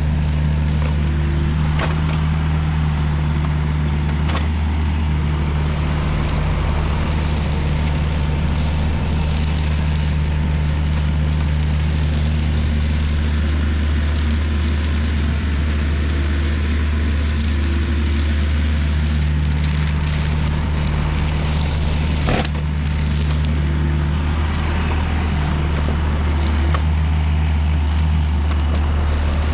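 Volvo EC35C mini excavator's diesel engine running steadily under load while its boom-mounted RUT BM 36 hydraulic brush mower spins, cutting grass and weeds. There is a constant low hum and a few sharp clicks, the loudest about 22 seconds in.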